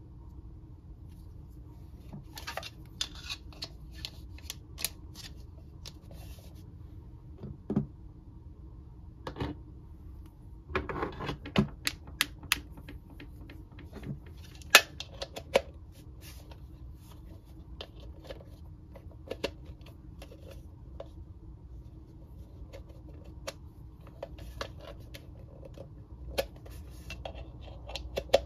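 Hard plastic Mr. Potato Head parts clicking and clattering as they are picked up, sorted and pushed into the toy's body, with scattered sharp clicks and a denser run of clatter about a third of the way in. A faint steady hum runs underneath.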